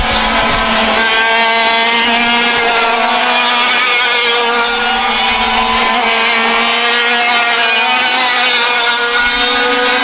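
100cc two-stroke racing kart engines running at high revs on the track. Their pitch holds fairly steady, with small rises and falls.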